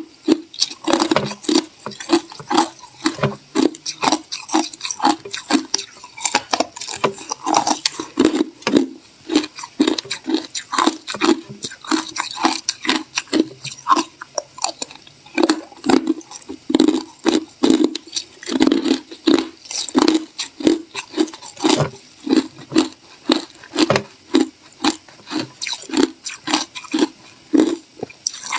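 Ice being chewed close to the microphone: a steady run of sharp crunches, about two a second, with no pause.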